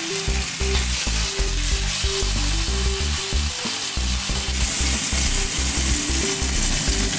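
Beef fillet searing in hot oil in a stainless steel frying pan: a steady sizzle and spatter, with background music and its bass line underneath.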